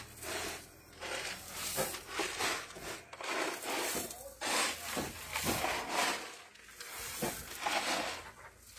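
A shovel scraping into gravelly soil and throwing it against the base of a tent wall, in repeated rough strokes about once a second.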